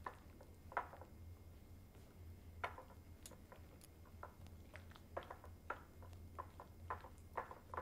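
Faint, irregular taps and soft clicks of a utensil against a glass mixing bowl as a thick cream cheese mixture is stirred.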